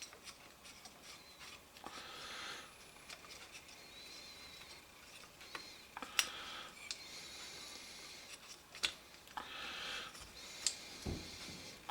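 Faint clicks, light taps and short scraping and rubbing of hand tools against small metal carburetor parts during the dismantling of a motorcycle carburetor's choke linkage. A few sharper clicks stand out, with a dull thump near the end.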